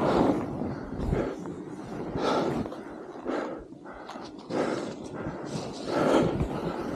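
Skis scraping and carving across packed snow through a series of turns, the noise swelling with each turn about every second or so and easing briefly in the middle.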